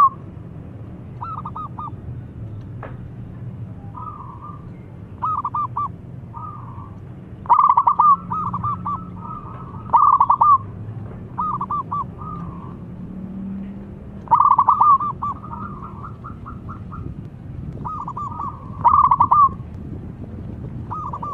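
Zebra dove (perkutut) cooing: short phrases of rapid staccato notes, repeated every two to three seconds, with four louder phrases among softer ones.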